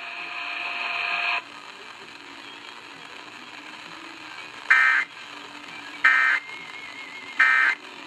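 Three short digital data bursts of an Emergency Alert System end-of-message code, each about a third of a second and about a second apart, heard through a radio's speaker. Before them, a steady sound with several held tones cuts off about a second and a half in.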